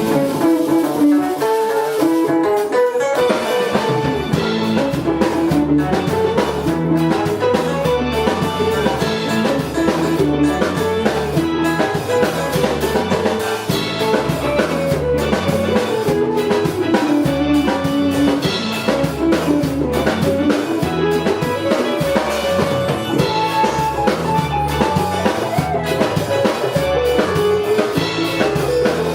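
Music: a guitar plays alone at first, then drums and bass come in about three seconds in, with a steady beat and a melody.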